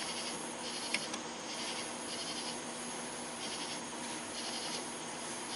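Night insects chirping in repeated high, pulsing calls about every half-second to second, over a faint steady hum, with a couple of small sharp clicks about a second in.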